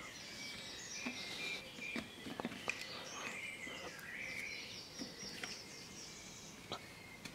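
Faint handling of a stiff rubber grommet being thumbed into its hole in an outboard motor's leg housing: light rubbing with a few small clicks. Faint high chirping runs through it.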